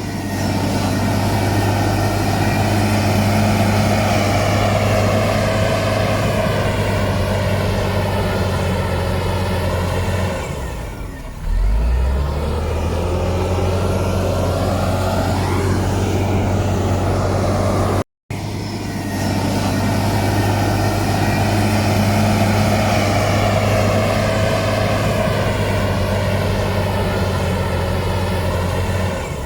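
Heavy earthmoving machine's diesel engine running steadily at high revs. About eleven seconds in it briefly dips and drops to a lower pitch, then keeps running. After a short break, the same high-revving run and drop repeat.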